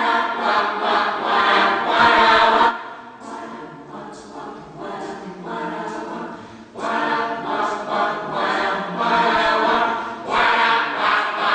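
A cappella vocal group singing together, unaccompanied. It is strong at first, turns softer about three seconds in, and swells back up about seven seconds in.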